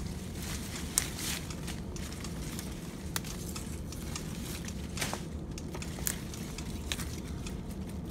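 Pepper plant leaves rustling and crackling as a hand pushes through them, with scattered sharp clicks over a steady low rumble.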